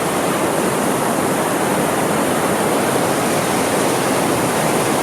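The Grand River running high and fast through its rapids: a steady, loud rush of water.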